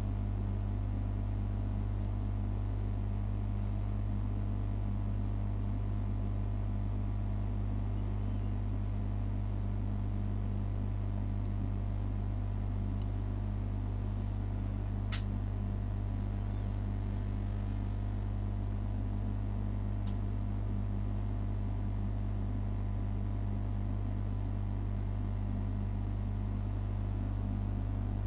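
Steady low electrical hum with fainter higher steady tones, unchanging throughout, and one sharp click about halfway through.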